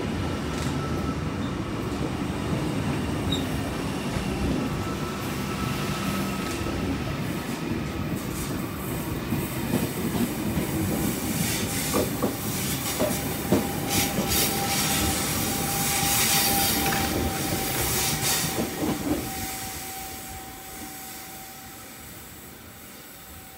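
Double-deck electric passenger train running past along a curved platform, its wheels clicking over the rail joints, with a steady wheel squeal joining in partway through. The sound drops away over the last few seconds.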